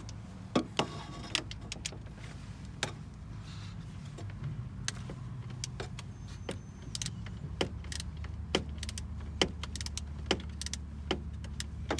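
A 12 mm wrench or socket loosening the nut on the starter motor's main positive terminal, with sharp metal clicks and clinks at irregular intervals over a steady low hum.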